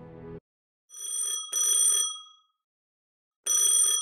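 A telephone ringing in double rings: a pair of short bell-like rings about a second in, then a second pair near the end.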